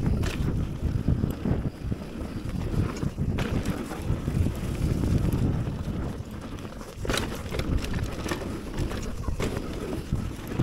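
Wind buffeting the camera microphone and tyres rolling on a dirt trail during a mountain bike descent, a continuous low rumble. A few sharp clicks and rattles from the bike come over bumps, about three seconds in and again about seven seconds in.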